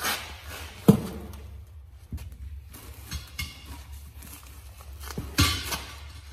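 Hand tire changing on a zero-turn mower wheel. A rubber tire thuds down about a second in. Scuffs and small knocks follow as the tire and rim are handled, then a sharper metallic clank near the end as a steel tire tool is worked against the rim.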